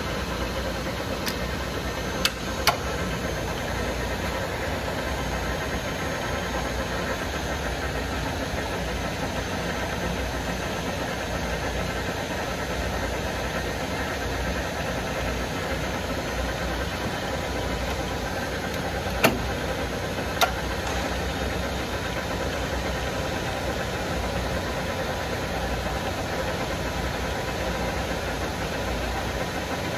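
LeBlond 34 x 120 engine lathe running empty under power, its headstock and spinning chuck giving a steady mechanical hum. A few sharp clicks stand out, two a couple of seconds in and two about two-thirds through.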